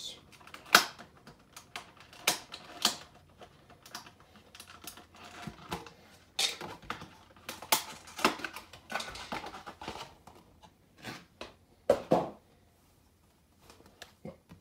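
Hands handling a cardboard collector box and its packaging while taking out promo cards: irregular sharp clicks, taps and rustles, quieter near the end.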